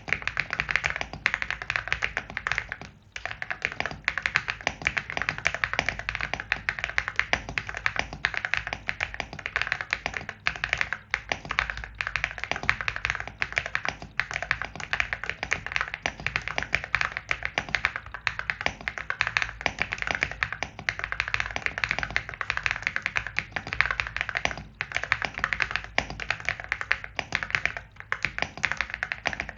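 AULA S75 Pro mechanical keyboard being typed on in a fast, continuous stream of key clacks, with a brief pause about three seconds in.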